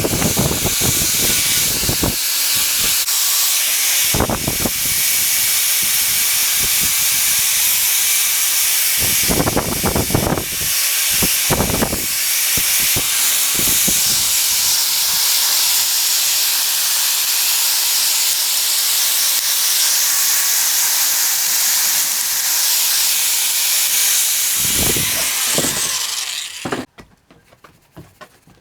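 A loud, steady hiss from a high-pressure spray or blast nozzle working on the old vise during its restoration, with a few short knocks along the way; it cuts off suddenly near the end.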